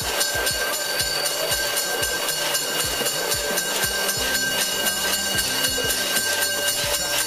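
Instrumental background music with a steady beat and a low line of held notes that steps in pitch.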